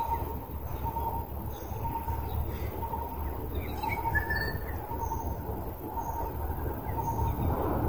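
Birds calling: short high chirps about once a second in the second half, over a faint note repeated every half second or so, with a steady low rumble underneath.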